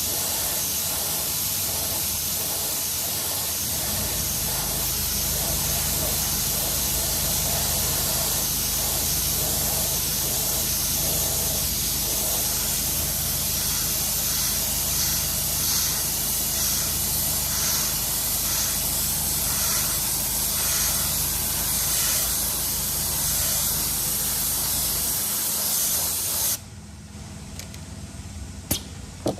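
Paint being sprayed onto an alloy wheel: a steady hiss that cuts off suddenly near the end, with a low steady hum under it for most of its length. Two short clicks follow just after the spraying stops.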